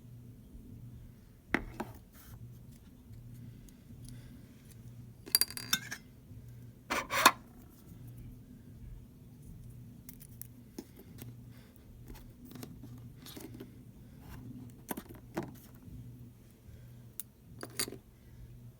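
Slime being handled: scattered sharp clicks and short crackling pops, with a cluster of them about five to six seconds in and a longer crackle about seven seconds in, over a steady low hum.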